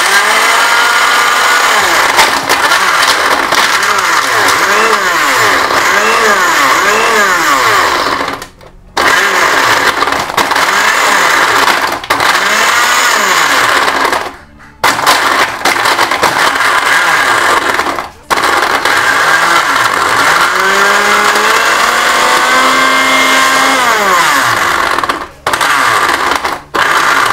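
Premium PB323 countertop blender motor running on ice cubes with no liquid; its pitch wavers up and down, and it stops and restarts five times. The ice is not reaching the blade, which the owner puts down to the blade sitting low in the jar.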